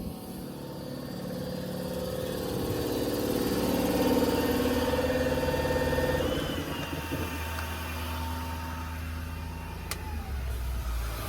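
6.4 Power Stroke V8 diesel engine running with the PTO-driven air compressor engaged. It grows louder over the first few seconds, then eases back down. There is a sharp click near the end.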